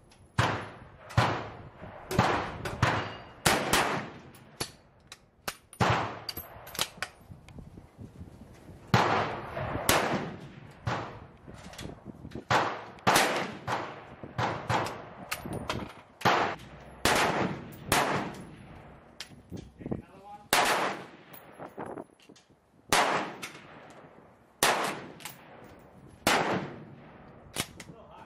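A long series of rifle shots from Krag–Jørgensen bolt-action rifles, about twenty reports at uneven spacing, some under a second apart and some with pauses of a few seconds. Each shot trails off in a short echo, and fainter reports sound among the louder ones.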